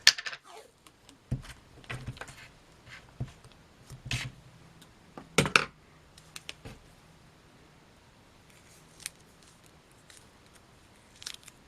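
Scissors snipping and clicking as electrical tape on wire splices is trimmed and handled. There are several sharp snips in the first six seconds, the loudest about four and five and a half seconds in, then a few isolated ticks.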